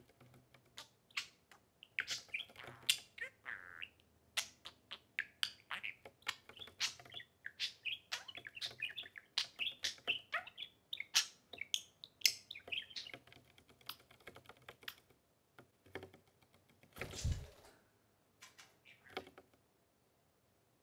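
Two budgerigars chirping and chattering in quick short calls, with many sharp clicks mixed in; the chirping dies away about three-quarters of the way through. A brief louder burst of noise comes near the end.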